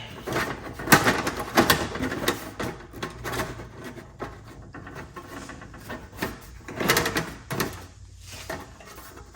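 Irregular clicks, taps and knocks of small parts being handled and fitted back together by hand, with light rustling between them. These are the parts of a plasma cutter's automatic drain being reassembled.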